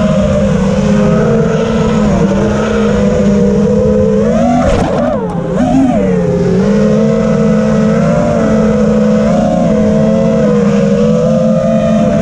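Brushless motors and propellers of a 5-inch FPV racing quadcopter, with iFlight Cyber Xing 2306.5 2550KV motors and Gemfan props, running in flight with a steady high buzz. Its pitch dips and swings back up with throttle changes between about four and six seconds in.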